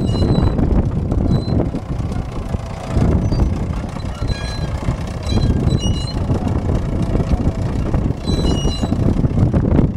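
1955 Fordson County crawler tractor on the move: its engine running under load with the rough clatter of the steel tracks, and short high squeals from the running gear now and then as it turns.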